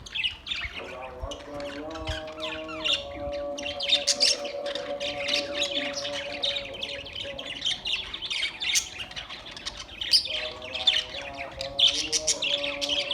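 A flock of caged budgerigars chattering: a constant stream of quick, high chirps and squawks. Beneath them a held low tone steps between pitches in two stretches, one near the start and one near the end.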